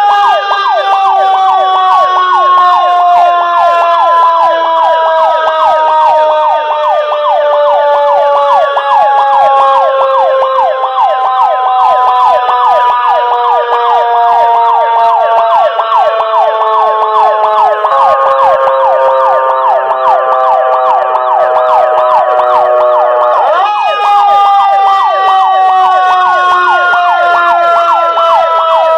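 Fire brigade sirens sounding together, loud and continuous: a long wailing tone slowly falls in pitch, over fast repeating up-and-down yelps. The pattern changes about eighteen seconds in, and the pitch jumps back up a few seconds later, then falls again.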